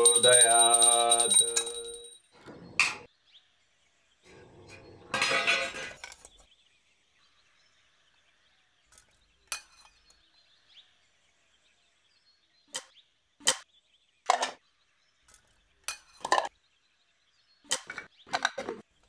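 Stainless steel tiffin containers clinking against each other in a series of separate sharp clinks as they are stacked and the lid is fitted. A brief noisy rush comes about five seconds in.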